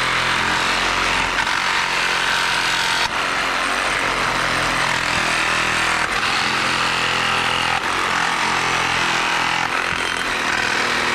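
DeWalt 20-volt cordless reciprocating saw with a Diablo carbide demolition blade running steadily as it saws through a wooden deck board full of deck screws. The blade has already made a couple hundred screw cuts.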